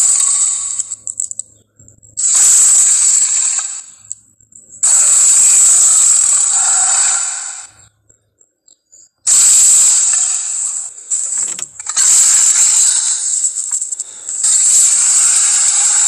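Movie-style dinosaur roar sound effects: six harsh, hissy roars, each one to three seconds long, with short silent gaps between them.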